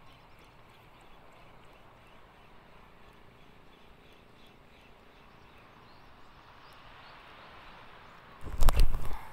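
Low, steady wash of wind and sea water with faint light ticks, then a brief loud rumbling knock-and-scrape near the end from the camera being handled and swung.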